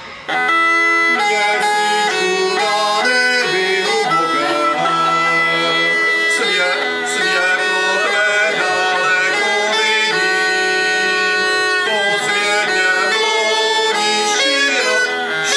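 Czech bagpipe (dudy) playing a tune over a steady low drone, cutting in abruptly just after the start.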